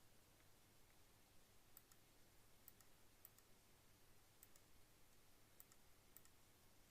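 Near silence: faint room tone with a few soft, scattered clicks, about six in all.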